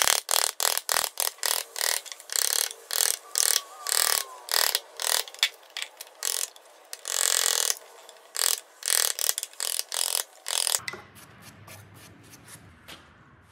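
Bench chisel paring the end grain of a timber angle brace: a quick run of short, crisp slicing strokes, about two or three a second, with one longer cut about seven seconds in. The strokes stop about three seconds before the end, leaving a faint low hum.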